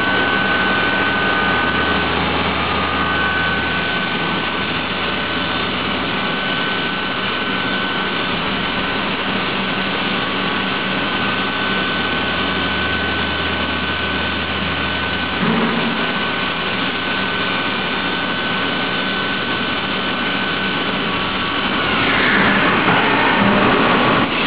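CNC milling machine with its spindle at 5000 rpm milling a 4140 steel bar under flood coolant. A steady high whine runs over the hiss of coolant spray and cutting, with a low hum that comes and goes. Near the end the noise grows louder and rougher.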